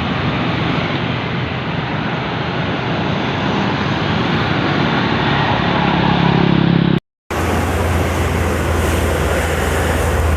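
Diesel bus engine running close by, growing louder toward a sudden break about seven seconds in; after the break another heavy engine runs with a steady low drone.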